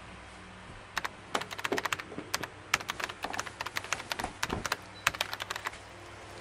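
A run of quick, irregular clicks and taps, starting about a second in and stopping shortly before the end.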